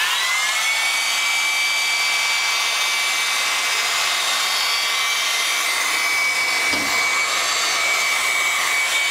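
A small motor starting up: a whine that rises quickly and then holds at one steady high pitch over a rushing hiss.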